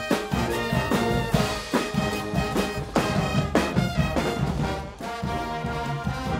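Guggenmusik brass band playing live: massed trumpets, trombones and sousaphones in loud held chords over a driving drum kit with cymbal crashes.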